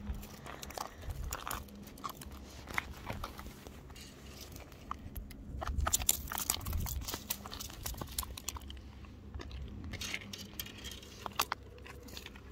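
Freshly caught mackerel flapping and slapping against tarmac while it is grabbed and unhooked: irregular clicks and slaps, busiest about six seconds in and again around ten seconds.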